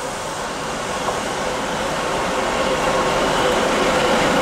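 Diesel locomotive S200-255 approaching with a freight train, its engine running with a steady hum while the noise grows steadily louder.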